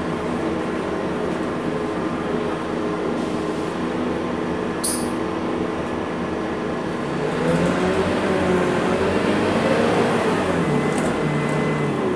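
Scania K230UB city bus's rear-mounted diesel engine heard from inside the passenger cabin, running steadily as the bus drives. From about halfway through, its pitch rises and falls and it gets a little louder.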